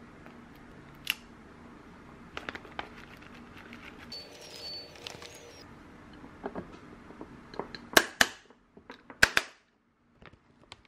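Plastic locking lid snapped onto a glass food-storage container: four sharp clicks in two quick pairs about a second apart as the latch flaps lock shut, after lighter handling taps and rustling.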